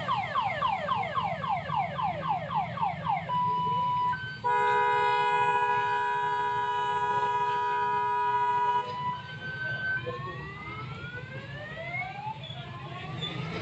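Multi-tone electronic vehicle siren, like a car alarm, cycling through its sounds. It gives rapid falling chirps about four a second, then a short steady beep, then a loud steady chord of several tones held for about four seconds, then slow rising wails.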